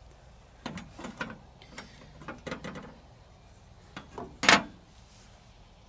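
Handling clatter: a run of light clicks and knocks, then one loud metallic clank about four and a half seconds in as a metal chainsaw file guide is picked up off a steel pickup truck bed.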